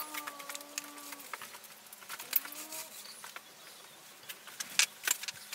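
Metal handlebar and clamp of a homemade scooter being handled and turned: light metal clicks and rattles, with a squeak at the start lasting about a second and a shorter rising squeak about two seconds in.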